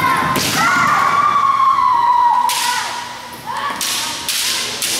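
Kendo match sounds: a fighter's kiai, one long held shout, with sharp cracks and thuds from bamboo shinai strikes and stamping feet on the wooden floor, the first just before the shout and more about two and a half and four seconds in.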